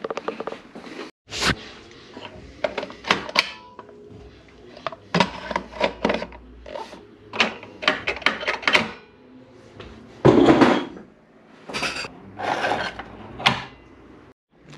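A series of plastic clicks, knocks and clunks as 3D-printed wall-mounted cookie dispensers are handled and worked by their levers, with a longer clatter about ten seconds in.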